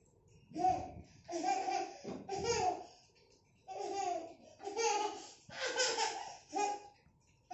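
A young child laughing in a string of short high-pitched bursts, about seven of them.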